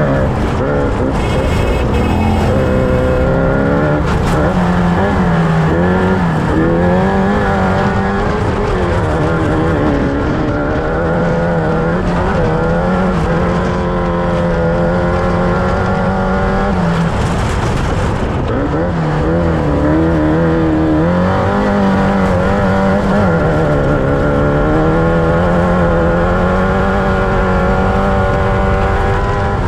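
Off-road race vehicle's engine running hard under load, its pitch climbing, holding and dropping again several times as the throttle is opened and lifted over rough terrain, with a constant rattling, rushing noise beneath it.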